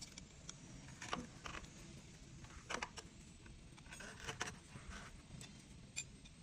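Light metallic clicks and clinks of a hex key working the steel disc brake rotor bolts on an e-bike hub motor, scattered irregularly over a faint low hum.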